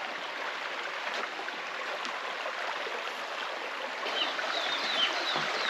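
Steady rush of a forest creek running over rocks, with a bird giving a series of short, high chirps about two-thirds of the way through.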